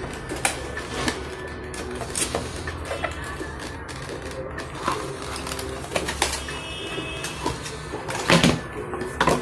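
Cardboard retail box being handled and opened by hand: paper flaps rustling and the inner card sleeve sliding out, with scattered clicks and scrapes and a louder knock about eight seconds in.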